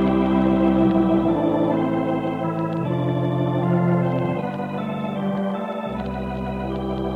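Opening theme music of a 1949 radio broadcast: sustained chords that change about every second and a half, growing a little softer in the second half, in a narrow-band old transcription recording.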